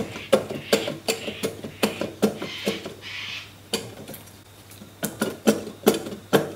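Crankcase half of a Mercury 2.5 litre two-stroke V6 powerhead being rocked and lifted by hand as it breaks free from the block: a series of irregular sharp metal knocks and clacks, a few a second, with a short lull about halfway.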